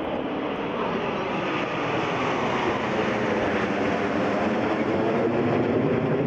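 A formation of Hawk turbofan jet trainers flying over: a loud, steady jet roar that grows gradually louder.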